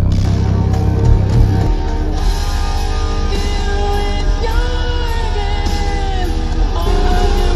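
A song with singing played through a car audio system of eight Suono Pro 12D4 subwoofers, with heavy deep bass. About two seconds in, the deepest bass eases and a sung melody comes through over the beat.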